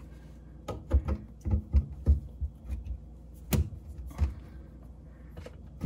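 Plastic sink drain pipe and slip nut clicking and knocking as the pipe is fitted and the nut hand-threaded on: a quick run of knocks about a second in, then a few single sharper clicks.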